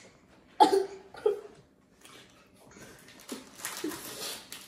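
Two short, loud vocal sounds about half a second apart near the start, then quieter breathy noise.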